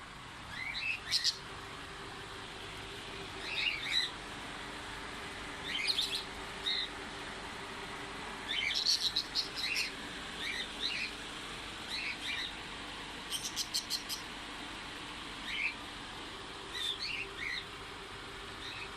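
Small pet parrots chirping in short bursts every second or two, with a quick run of rapid chirps about two-thirds of the way through, over a faint steady low hum.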